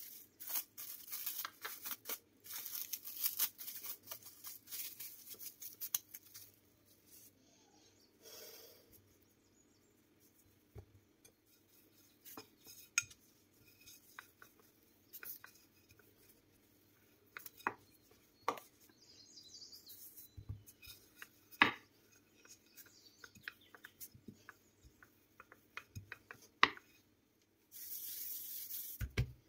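Plastic cling film crinkling as it is peeled off a ball of dough for the first few seconds. Then a wooden rolling pin rolls dough on a wooden board, with scattered sharp knocks. Near the end there is a short rustle as a hand rubs flour over the rolled dough.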